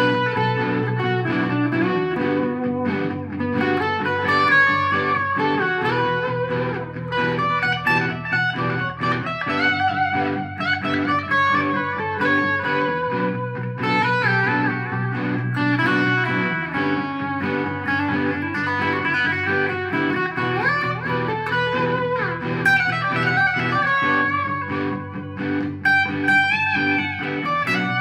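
Electric guitar improvising lead lines on the G major pentatonic scale over a repeating chord backing of G major, B minor, G major and E minor, with the chord changing every three to four seconds.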